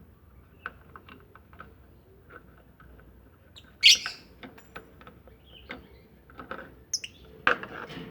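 Lovebirds giving short chirps and sharp calls among scattered clicks, with two louder calls about four seconds in and near the end.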